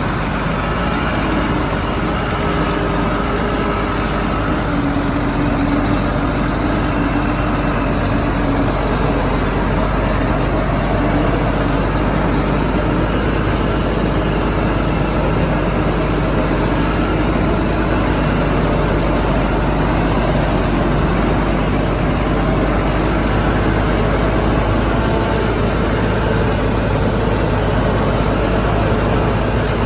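Shantui bulldozer's diesel engine running steadily, a continuous low engine drone with a few faint tones above it.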